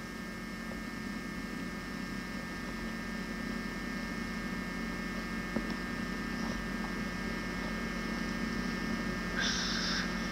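Steady electrical hum and tape hiss of an old home-video recording, with a faint click about five and a half seconds in and a short breathy hiss near the end.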